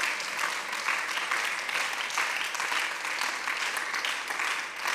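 Applause from many people in a parliament chamber, a steady crackle of clapping hands that fades out near the end.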